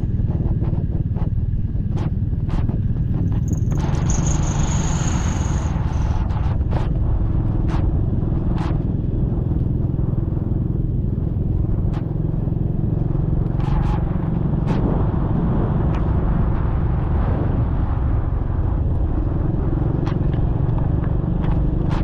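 Motorcycle being ridden at a steady pace, its engine and the ride making an even, low rumble, with scattered small clicks and knocks.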